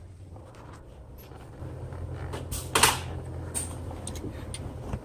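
Hand tools being rummaged through, with one loud clatter of tools shifting just under three seconds in and a few small clicks around it. A steady low hum comes in about a second and a half in.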